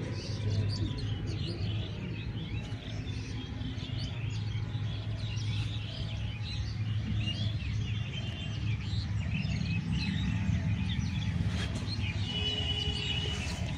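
Many birds chirping and trilling together in quick, overlapping short calls, with one held whistled note near the end, over a steady low hum.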